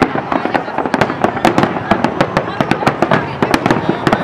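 Fireworks display: a dense barrage of aerial shell bursts, loud, irregular bangs several a second over a steady din.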